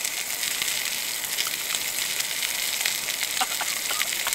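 Steak searing in a hot non-stick frying pan: a steady hissing sizzle of spitting fat, with a few sharp pops near the end.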